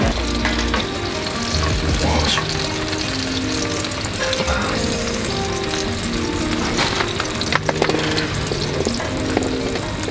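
Chicken sizzling and crackling in a frying pan on a hot stove, under soft background music.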